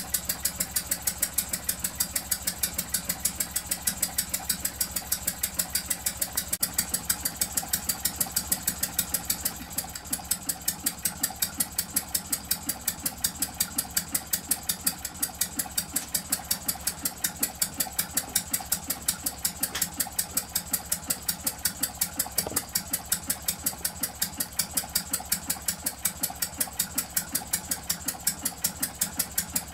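Homemade model twin-cylinder hot-bulb semi-diesel engine (20 mm bore, 36 mm stroke) running steadily on kerosene: an even, rapid beat of firing strokes with light mechanical clatter.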